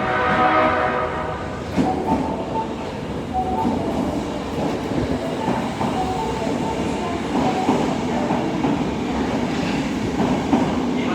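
An Osaka Metro 22 series subway train sounds its horn, which has an odd, off-sounding tone, for about the first second and a half. It then pulls away, with running noise and wheels clicking over rail joints.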